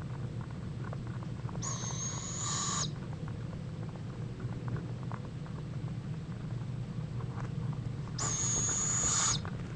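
A bird's call: two high, steady whistle-like notes, each about a second long, about six seconds apart, over a steady low hum.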